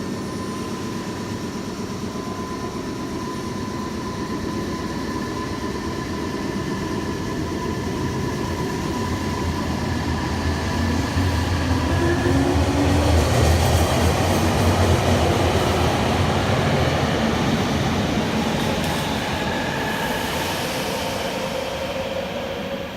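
Nagoya subway train running, a steady rumble with a faint whine. The noise builds to its loudest about halfway through, then eases off.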